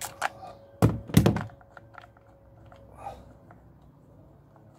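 Metal clicks and two heavy thunks about a second in, then a run of small light clicks: a socket being worked on the thermostat housing's bolts, and the metal housing handled on a wooden table.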